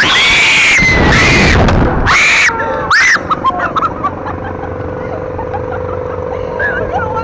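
Young women screaming on a fast fair thrill ride, four loud screams over a rush of wind on the microphone, then breaking into laughter about three seconds in. A steady hum from the ride runs under the laughter.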